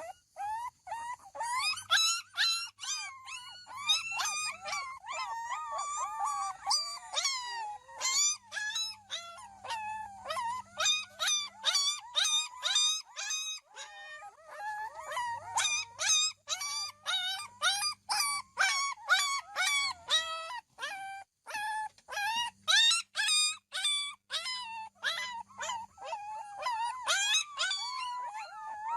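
Dog giving a rapid string of high-pitched yelping, whining calls, about two or three a second, with a couple of brief pauses.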